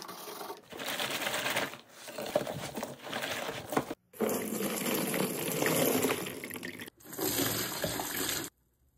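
Water splashing and swirling in a spin mop bucket, in short clips joined with abrupt cuts, briefly dropping out twice and stopping suddenly near the end.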